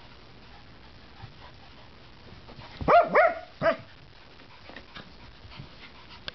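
A dog at play barking three times in quick succession, short sharp barks about three seconds in, while the dogs romp with a rope toy.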